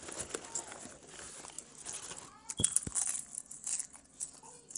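Crinkling and crunching of popcorn as it is handled and stuffed into mouths, with two sharp knocks a little after two and a half seconds.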